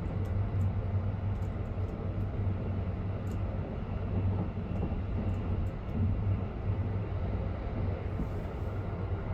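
Running noise of the Sunrise Express sleeper train heard inside a carriage: a steady low rumble and hum, with faint light ticks now and then in the first few seconds.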